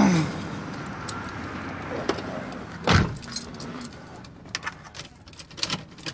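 Handling noise inside a car: a single loud thud about three seconds in, then light clicks and jingling of keys.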